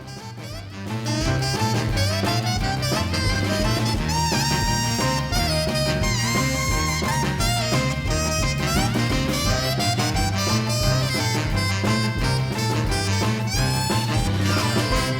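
Background swing music with brass and saxophone over a steady beat.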